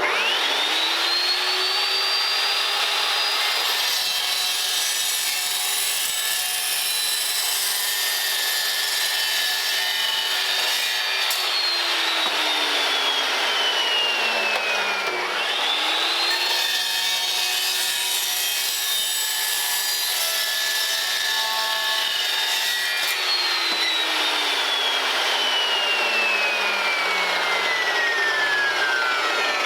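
Electric power saw cutting metal tubing: the motor spins up, runs steady under a loud grinding cut, then winds down slowly, twice.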